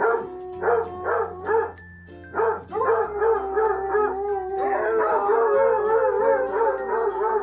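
A dog whining: a few short whimpers, then from about three seconds a long, wavering whine.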